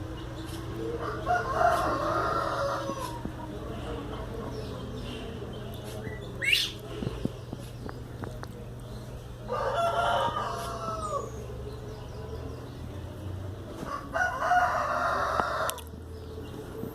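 A rooster crowing three times, each crow lasting about two seconds. A short high rising chirp comes in between.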